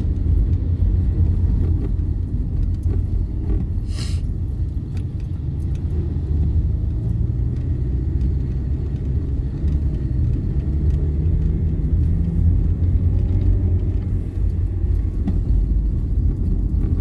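Steady low rumble and drone of a moving motor vehicle heard from inside its cabin: engine and road noise. A short click is heard about four seconds in.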